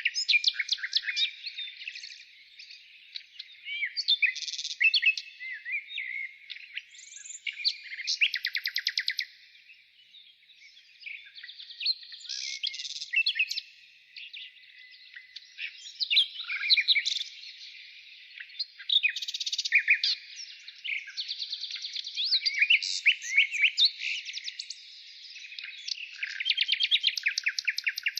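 Birds singing and calling: a busy mix of sharp chirps, slurred whistles and rapid buzzy trills, with short lulls about ten and fourteen seconds in.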